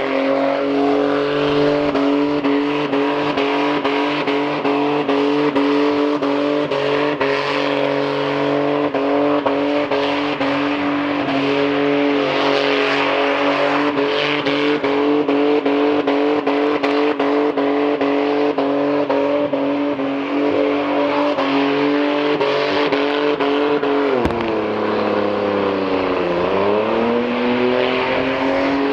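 Car engine running at steady revs. About 24 s in, the revs drop and then come back up over a couple of seconds before holding steady again.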